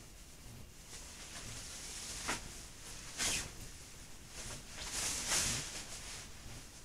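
Shiny nylon down puffer jacket and PVC suit rustling and swishing as the jacket is swung on and the arms are pushed into its sleeves: several short swishes, the loudest a little past halfway.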